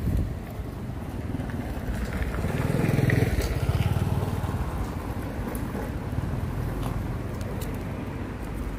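A motor vehicle engine running nearby: a low rumble that swells to its loudest about three seconds in, then settles to a steady drone.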